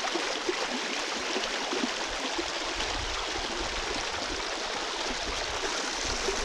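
Steady rush of running water from a woodland stream.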